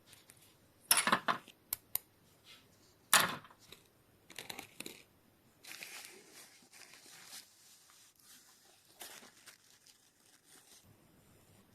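Irregular rustling and crumpling handling noises, with two loud sharp sounds about one and three seconds in.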